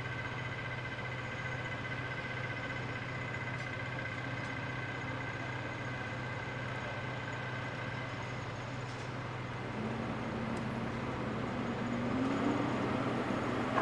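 Diesel engines of Caterpillar hydraulic excavators running steadily with a low hum. About ten seconds in, a higher engine note comes in and grows louder as an excavator works its loaded bucket up toward the dump truck.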